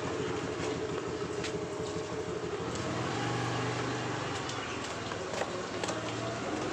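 A motor vehicle's engine running steadily, with a few light clicks over it.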